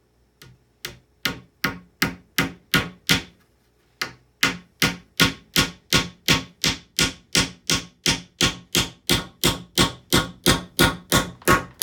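Hammer driving a 1.5-inch panel nail into lightweight wood: a steady run of about thirty strikes, roughly two and a half a second, starting light and getting firmer, with a short pause about three seconds in.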